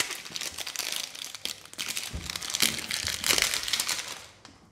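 Clear plastic shrink wrap being peeled off a phone box and crumpled in the hands: irregular crinkling crackles that die away near the end.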